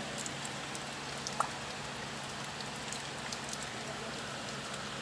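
Steady heavy rain falling, an even hiss with scattered light drips and a small tick about a second and a half in, over a faint steady low hum.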